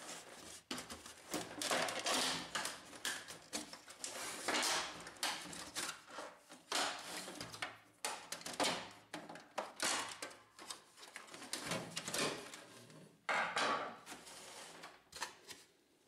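Irregular plastic clicks, knocks and scrapes as a Brother laser printer's plastic side cover is pried off its snap hooks with a screwdriver and pulled away from the chassis.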